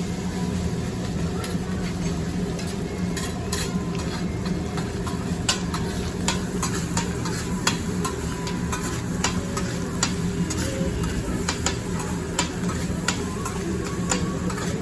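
Food sizzling on a hibachi flat-top griddle, with metal spatulas scraping and clicking against the steel in quick, irregular strokes over a steady hum.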